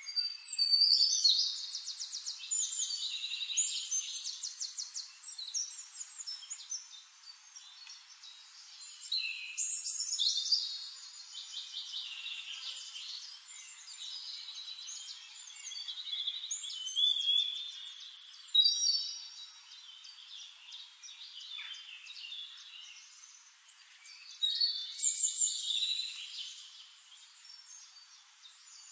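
Songbirds singing: rapid high trills and chirps that come in louder bursts every few seconds, with quieter chirping between.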